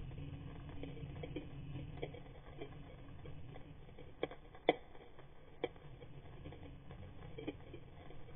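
Underwater sound picked up by a camera swimming over a rocky reef: a steady low rumble with scattered faint clicks and crackles, and a few sharper clicks about halfway through.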